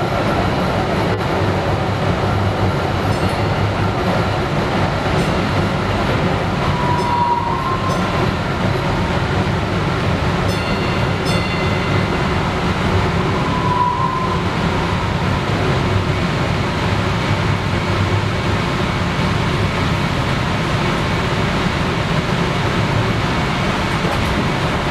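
Steady rumble of a DART light-rail car running along the track, heard from inside the car. Two brief squeals come through, about seven and fourteen seconds in.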